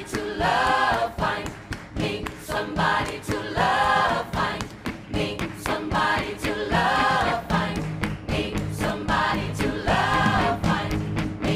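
Live gospel choir singing in full voice, in phrases a few seconds long, over a steady beat.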